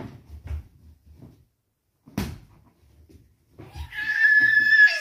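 A toddler's loud, high-pitched squeal, held for over a second near the end, before a burst of laughter. Before it come a few soft low thumps and one sharp knock.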